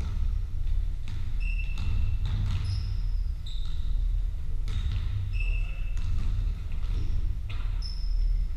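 Basketball game on a wooden sports-hall floor: short, high squeaks of players' shoes come every second or so, mixed with ball bounces and knocks that echo in the large hall, over a steady low rumble.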